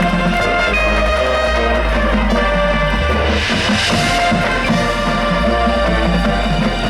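Marching band playing: sustained brass chords over moving low bass notes and percussion, with a bright rushing swell about three seconds in.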